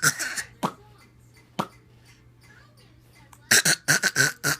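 A baby's deliberate fake coughs: short, breathy coughs, a few single ones early on and then a quick run of several about three and a half seconds in.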